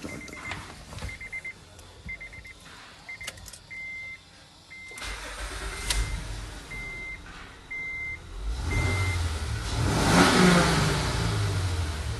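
Dashboard warning chime beeping over and over as the 2013 Honda Odyssey's V6 engine is started about five seconds in, then briefly revved near the end. The engine is running with a newly replaced timing-belt tensioner.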